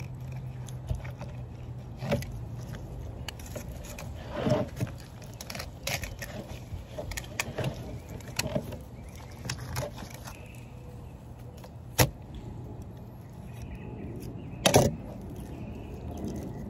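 Fish being filleted with a knife on a cutting board: irregular knocks and scrapes, with two sharp hits near the end, over a steady low hum.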